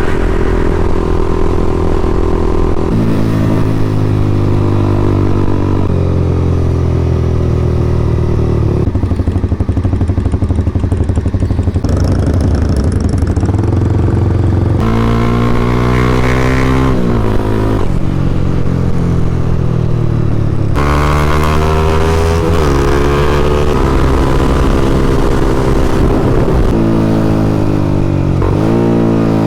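Honda CBR300R's single-cylinder engine on the move. Its pitch climbs under acceleration and drops at each gear change, again and again, with steady stretches at constant speed in between.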